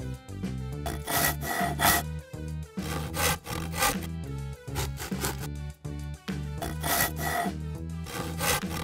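A serrated knife sawing through play dough in several scraping strokes, over background music with a steady bass line.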